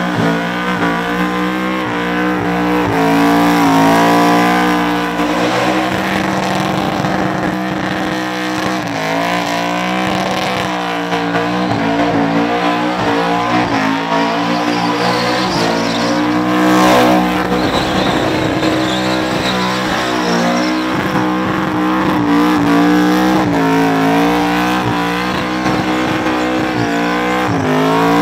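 VK Commodore burnout car's engine held at high revs during a burnout, its pitch rising and falling as the throttle is worked, with the rear tyres spinning and squealing on the pad.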